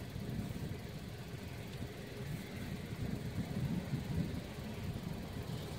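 Low, steady rumble of a vehicle's engine idling.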